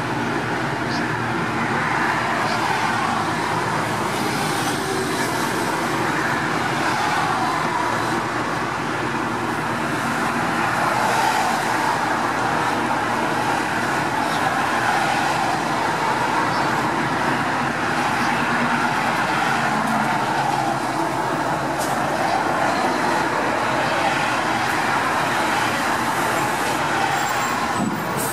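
Steady road traffic noise from a busy street: a continuous wash of passing vehicles.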